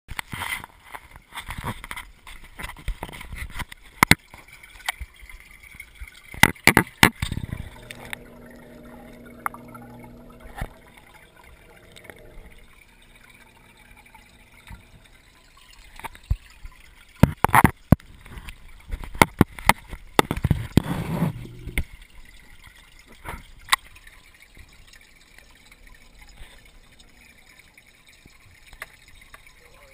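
Waterproof camera handled in and under aquarium water: irregular sharp knocks and clicks with water gurgling and trickling, and a low hum for a few seconds about a third of the way in.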